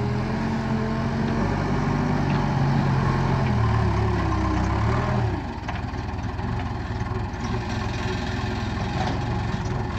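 Case 580 Super K backhoe's diesel engine running under working revs, its pitch holding and creeping up slightly, then dropping to a lower, rougher note about five seconds in as the revs come down.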